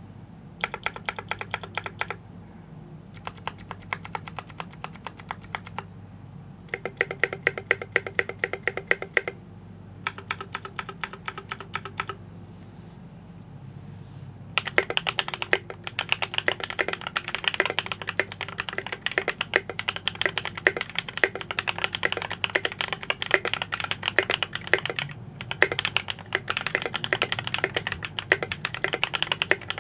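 Typing on a Drop ALT High Profile mechanical keyboard with lubed Holy Panda tactile switches and PBT double-shot keycaps: four short bursts of rapid key clacks with brief pauses between them, then continuous typing from about halfway through.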